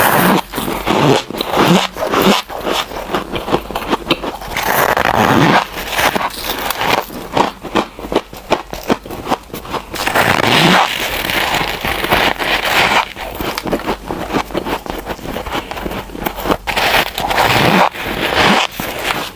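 Snowballs of soft freezer frost crunching and crackling as they are bitten and chewed, in repeated swells of dense crackle every few seconds.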